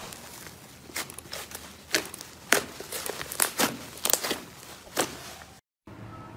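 Slime being pressed and squeezed by hand, giving irregular sharp crackling pops. About five and a half seconds in the sound cuts off abruptly, and quieter handling follows.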